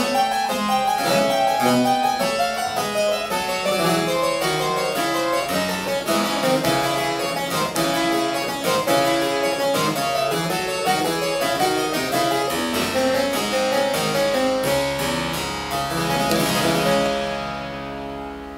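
Solo harpsichord playing baroque music: a busy passage of quick notes that ends about 15 seconds in on a held final chord, which rings out and fades.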